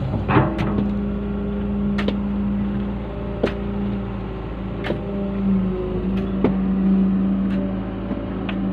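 John Deere hydraulic excavator working its bucket in a trench: the diesel engine runs with a steady hum that swells twice as the hydraulics take load. Irregular sharp knocks and clicks come from the bucket and its steel teeth working the soil.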